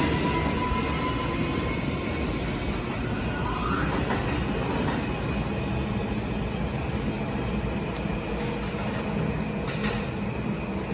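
New York City subway J train pulling out of an underground station, its wheels and motors rumbling and slowly fading as it moves off down the tunnel.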